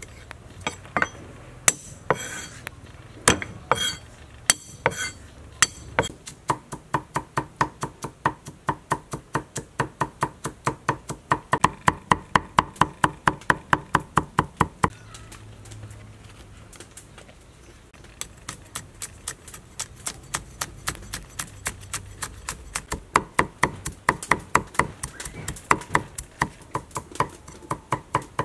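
A cleaver chopping garlic on a thick wooden chopping block. There are a few separate knocks in the first seconds as the cloves are cut, then fast, even chopping at about four to five strokes a second as they are minced. The chopping pauses about halfway through and starts again.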